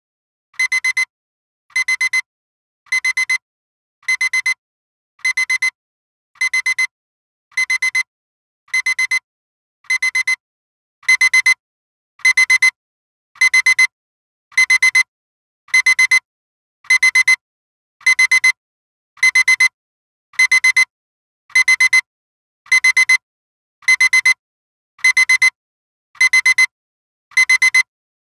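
Electronic alarm-clock beeping, a timer's wake-up alarm: short, high, fluttering beeps repeating about once a second, steady in rhythm, stepping up in loudness about 11 seconds in. It signals that the nap countdown has run out.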